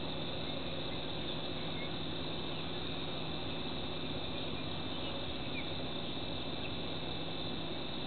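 Steady, continuous chorus of insects, a high even buzz, over a low steady hum.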